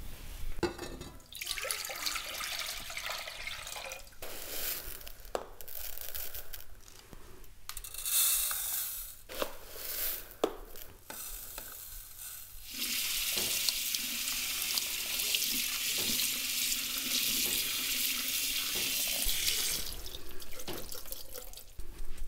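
Kitchen tap water running over jasmine rice in a mesh strainer and splashing into a stainless steel sink as the grains are rubbed by hand to rinse them. The water comes in short spells at first, then runs steadily for several seconds and is shut off near the end.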